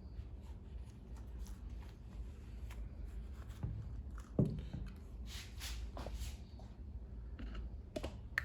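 A rag rubbing and wiping the inside of a rubber air intake coupling, with small clicks of handling and one knock about four and a half seconds in, over a low steady hum.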